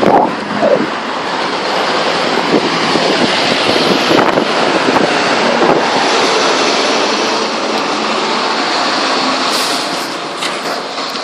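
Strong gale-force wind rushing in a loud, steady hiss that eases slightly near the end.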